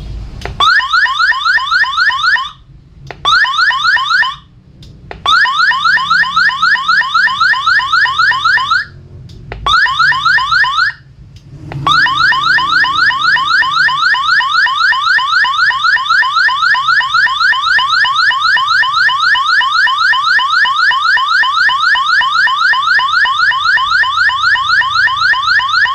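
Electronic siren-like tone from a speaker driven by an AT89S52 microcontroller through an L298N driver board: rapidly repeating rising chirps, several a second. It stops and restarts a few times in the first half, then runs steadily.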